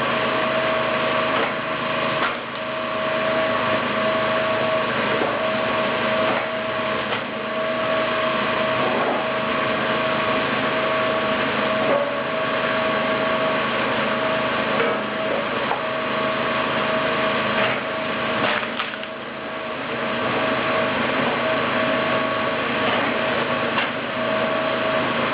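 Kinetic flywheel log splitter running steadily, with a constant whine from its drive and spinning flywheel. Now and then sharp cracks of wood rounds splitting cut through, with a brief dip in the machine noise a little past the middle.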